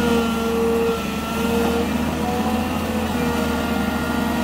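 Excavator diesel engine running steadily, with short whining tones over it that shift in pitch.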